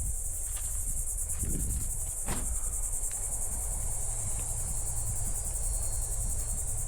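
A steady, high-pitched insect chorus of rapidly pulsing trills, like crickets, with a low rumble underneath and a faint knock about two seconds in.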